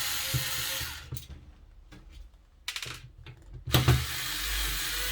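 Electric screwdriver running as it backs out the screws from the underside of a computer power supply case. It stops about a second in, a few handling clicks follow, and it starts up again sharply near the end.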